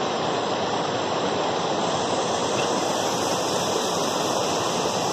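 Muddy, rain-swollen creek rushing steadily as floodwater.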